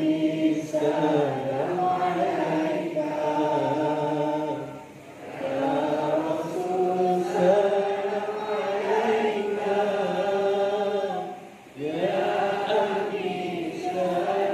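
A large group of students singing together in unison without accompaniment, in long held phrases with short breaks about five and eleven seconds in.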